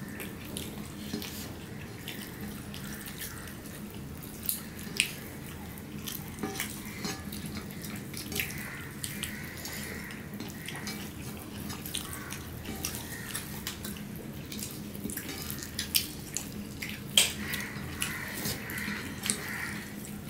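Wet eating sounds: fingers mixing rice and curry on plates and mouths chewing, many small irregular smacks and clicks over a steady low hum.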